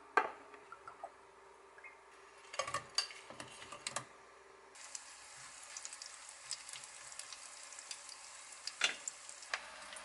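Breaded pieces frying in shallow oil in a frying pan, a steady sizzle that comes in about halfway through. Light clicks and taps of wooden chopsticks against the pan, with a sharper click near the end.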